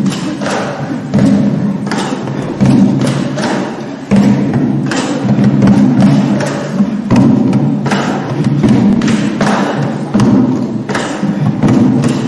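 Music carried by slow, heavy drum hits, roughly one a second and not quite even, over a low sustained tone.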